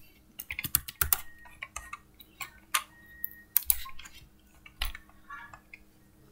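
Computer keyboard keystrokes and mouse clicks, coming irregularly in short clusters, then stopping about five seconds in.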